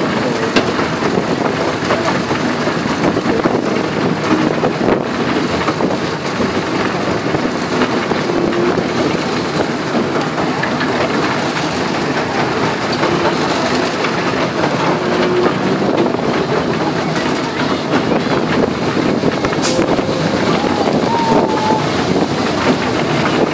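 Miniature railway train running along the track: a steady rumble with a dense clatter of small clicks from the wheels on the rails.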